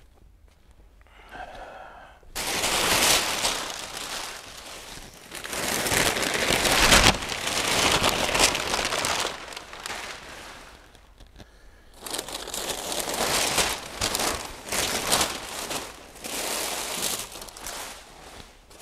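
Brown kraft packing paper being pulled from a wooden shipping crate and crumpled: loud, crunchy rustling in long stretches, starting about two seconds in, with a short pause just past the middle.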